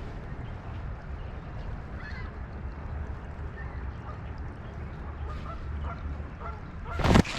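Steady low rush of flowing creek water and wind, with a few faint short calls and one loud, sharp honk-like sound near the end.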